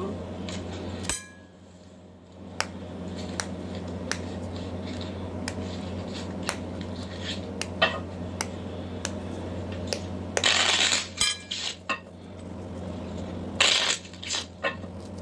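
Kitchen knife cutting into a pomegranate's rind by hand, with scattered light clicks and taps of the blade and fruit against a ceramic plate, over a steady low hum. Two short, louder noisy bursts come about ten and thirteen and a half seconds in.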